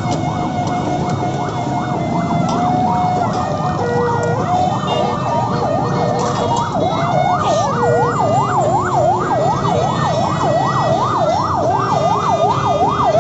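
An emergency vehicle's siren sweeping up and down in pitch, at first more slowly, then from about halfway in a fast yelp of about three sweeps a second, over a steady hum of road traffic.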